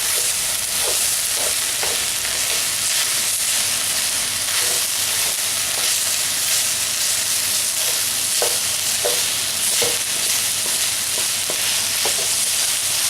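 Beef and pork mince sizzling steadily in a hot pan as it browns, with a spoon scraping through it in short strokes now and then. The fat has cooked off and the meat is starting to stick to the pan.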